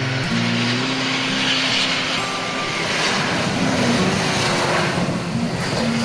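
Airbus A320 jet airliner landing, a loud, even rush of jet-engine noise that swells to its peak about four seconds in. Background music with plucked guitar notes plays under it.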